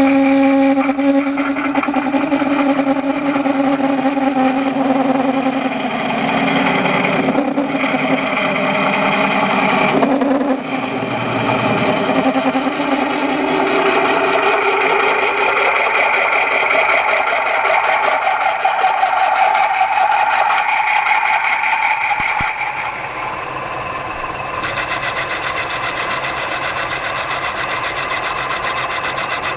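Metal lathe turning a bronze bar while a large twist drill bores into its end. The cut gives a loud whine made of several steady tones that shift in pitch as the drill feeds in. About two-thirds of the way through it drops in level, and it ends as a steadier, hissing lathe spin.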